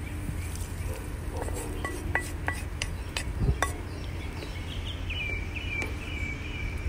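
A few light clinks and taps of cookware, from about a second and a half to nearly four seconds in, as sliced ginger is tipped from a small frying pan into a pan of simmering chicken adobo and stirred with a wooden spoon, over a steady low rumble.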